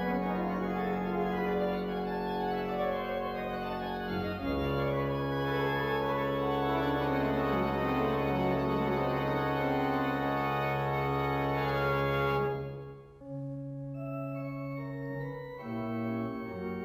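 Organ music playing slow, sustained chords. The chord shifts to a deeper bass about four seconds in, the sound drops away briefly near thirteen seconds, and it resumes more softly with new chords.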